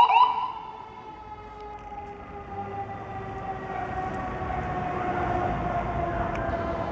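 Emergency vehicle siren: a fast yelp that stops about half a second in, then a long siren tone that slowly falls in pitch. Under it is a growing low rumble of engine and road noise.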